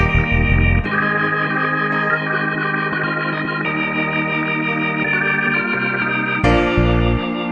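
Instrumental background music of sustained, organ-like keyboard chords. The bass drops out about a second in and comes back, fuller and brighter, near the end.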